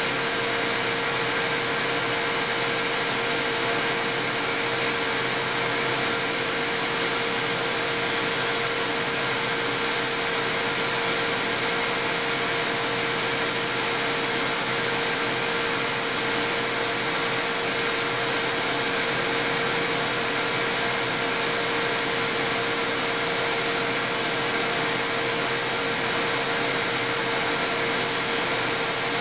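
Metal lathe running steadily while a tool faces and bores a cast iron workpiece, a continuous whir with a constant mid-pitched hum.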